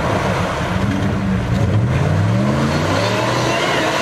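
Off-road 4x4's engine revving under load, its pitch climbing about halfway through and easing off near the end, over a steady noisy wash.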